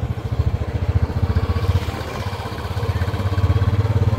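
Small engine running steadily with a fast, even pulsing beat that smooths out for a moment around two seconds in.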